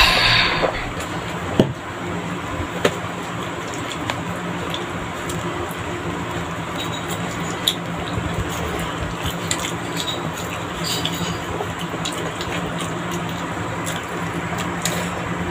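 Mukbang eating sounds: chewing and wet, squishy mouth noises with scattered light clicks of utensils, over a steady background hum. A short loud burst sounds right at the start.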